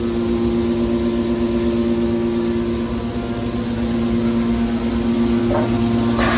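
Hydraulic metal baler running: a steady hum from its motor and hydraulic pump, with two short knocks near the end.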